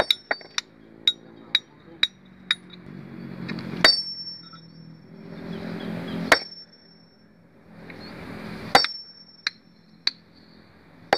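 Hand hammer striking a large stone block along a crack to split it. Light taps come about twice a second, then three heavy blows about two and a half seconds apart, each with a short metallic ring. Two lighter taps follow near the end.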